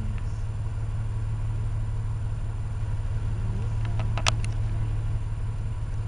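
Car engine idling steadily, with a couple of sharp clicks about four seconds in.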